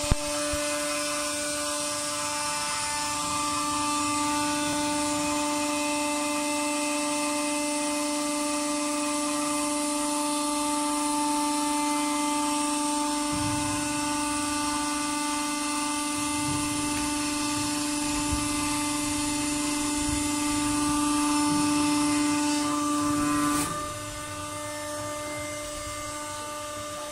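The hydraulic unit of a CLEVER filter press running, its electric motor and hydraulic pump giving a steady whine over a hiss. About 24 s in the whine drops in level and falls slightly in pitch.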